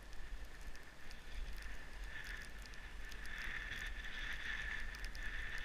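Skis sliding through snow, a hiss that swells about two seconds in and is strongest in the second half, with a few faint clicks over a steady low rumble.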